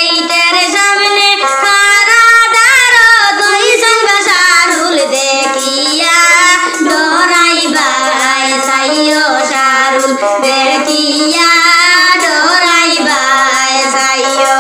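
A woman singing a Sylheti wedding song (biyer gaan) in a high voice, with long held notes that bend and glide, over light instrumental backing.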